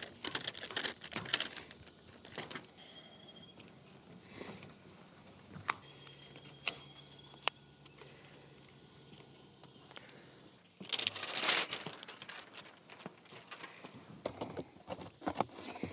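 Light metallic clinking and rustling with scattered taps as metal roofing trim and fasteners are handled. It is busiest at the start and again about eleven seconds in.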